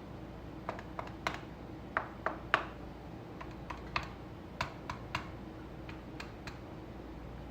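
Light, irregular clicks, a few a second, as holes are pricked into tart dough pressed into small tart moulds. The pricking (docking) keeps the pastry from puffing up as it bakes.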